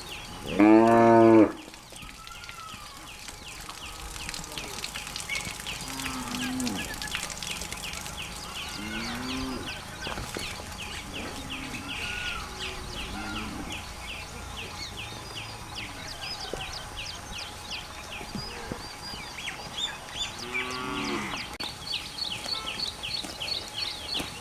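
Cows mooing: one loud moo about a second in and another near the end, with fainter, shorter calls in between. A steady high chirping repeats several times a second underneath.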